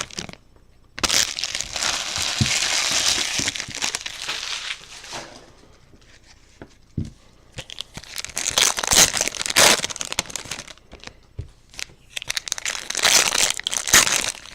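Foil wrappers of Bowman Chrome trading card packs crinkling as they are handled and torn open, in three spells with quieter gaps between.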